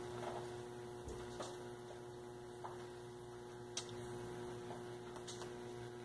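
Steady electrical mains hum from a powered washing-machine control board test rig, with a few faint light clicks.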